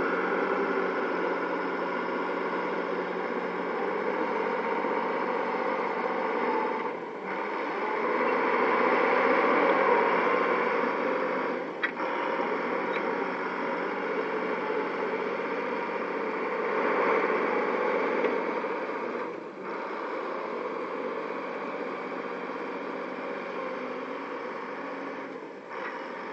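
Dresser TD15C crawler bulldozer's diesel engine running as the machine pushes soil with its blade, swelling and easing a few times with short dips in between.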